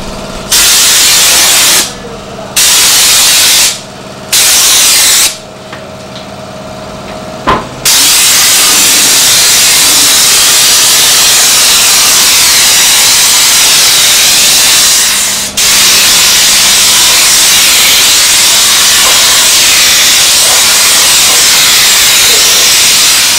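Car-wash spray gun hissing loudly as it sprays a car's wheel and underbody: three short bursts, then one long continuous spray with a brief break midway.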